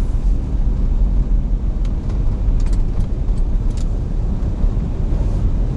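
Car driving, heard from inside the cabin: a steady low rumble of engine and tyres on the road, with a few faint light ticks near the middle.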